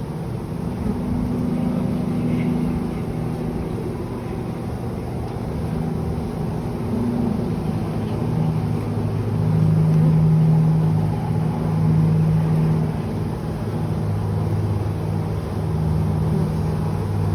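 Honeybee swarm buzzing close by, a steady hum of several pitches that swell and fade as the bees move around the box entrance while they march in.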